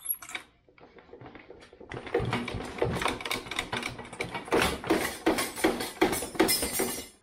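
Hand ratchet wrench working a bolt at the rear shock area of a 2012 Yamaha YZ250F: a fast, uneven run of sharp metallic clicks that starts about two seconds in and stops abruptly.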